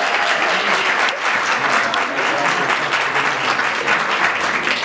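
Audience applauding: dense, steady clapping from a crowd in a hall.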